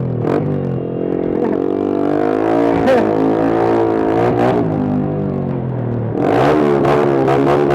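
Motorcycle engine running loud through a Pro Liner muffler with the dB killer removed, its pitch rising and falling as it is ridden, climbing about six seconds in. A few short sharp cracks come through over it.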